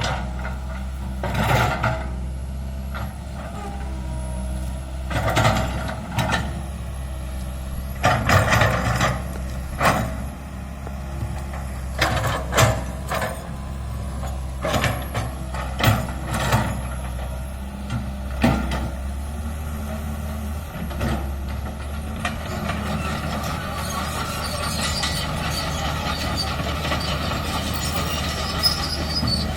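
Hydraulic excavator working: its diesel engine runs steadily while the bucket and machinery give a string of sharp clanks and knocks, and the sound turns into a steady rushing hiss over the last several seconds.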